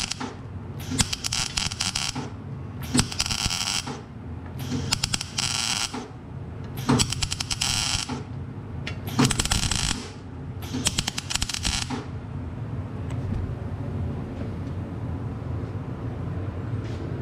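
MIG welder laying short runs on an exhaust pipe: about six bursts of crackling arc, each a second or so long with brief pauses, stopping about twelve seconds in. A steady low hum continues underneath and after.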